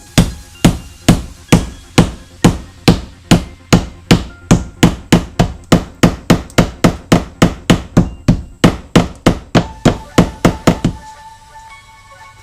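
Hammer striking a nail into a drywall wall: about thirty even blows, roughly three a second, stopping about eleven seconds in.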